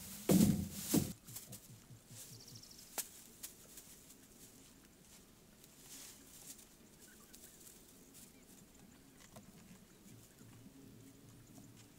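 Dry grass thatch rustling and crackling as bundles are lifted and laid on a bamboo roof frame. It is loudest in the first second, then faint rustles and a few short clicks.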